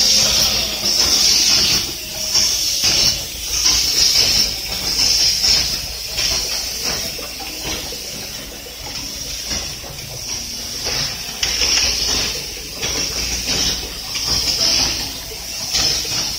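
Child-resistant cap assembly machine running, its pneumatic valves letting out short bursts of air hiss about once a second over steady clicking and clattering of the mechanism and caps.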